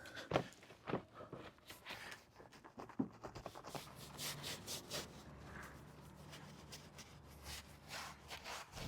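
Hands-on detailing work: rubbing and scraping with scattered sharp clicks and knocks. A low steady hum comes in about three and a half seconds in and stops near the end.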